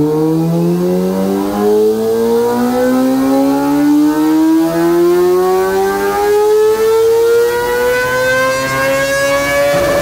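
Kawasaki ZX-25R's 250 cc inline-four engine making a full-throttle pull on a chassis dynamometer, its revs climbing smoothly and steadily into a very high-pitched wail. The pitch peaks just before the end and begins to fall as the throttle closes.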